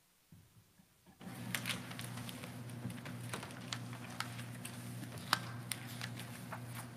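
Choir members getting to their feet and handling their music folders: scattered clicks, knocks and paper rustles over a steady low hum, which comes in suddenly about a second in.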